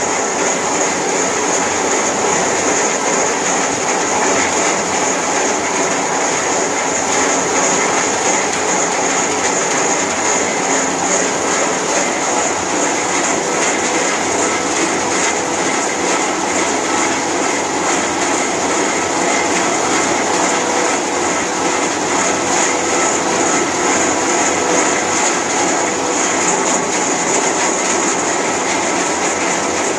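Rubber coarse crusher and its draught fan running steadily: a loud, even mechanical noise with a high hiss running through it.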